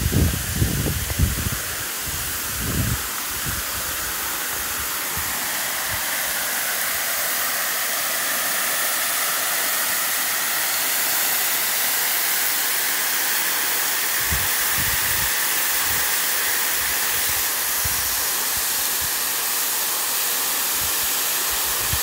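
Waterfall: a steady rush of falling water that grows a little louder over the first few seconds and then holds even. A few low thumps in the first three seconds.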